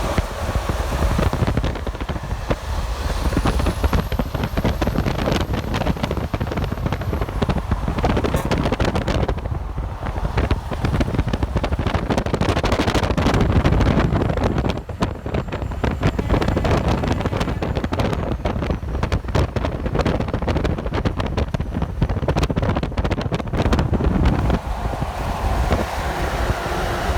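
Highway traffic passing close by: a continuous low rumble of engines and tyres, with wind buffeting the microphone.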